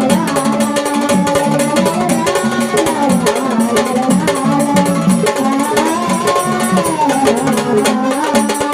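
Gondhal devotional folk music: a sung melody gliding up and down over steady drum and percussion accompaniment.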